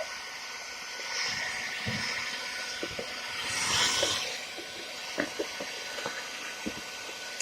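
Hairdryer blowing steadily, with a swell of rushing air about halfway through and a few light clicks and knocks near the end.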